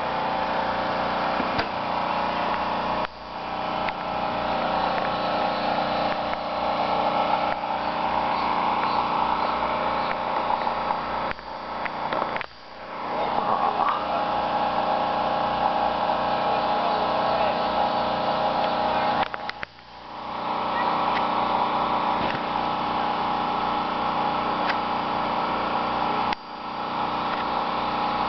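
An engine running steadily, with a low even pulsing and a hum of steady tones; the sound dips sharply four times and recovers over about a second each time.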